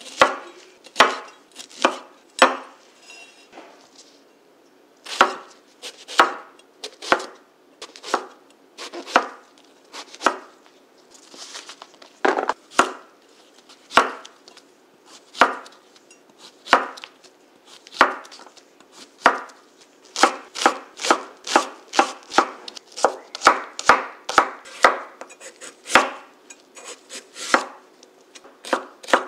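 Chef's knife chopping broccoli, Korean zucchini and carrot on a wooden cutting board, each cut ending in a sharp knock of the blade on the wood. The knocks come about one a second at first, then faster, about two a second, over the last third.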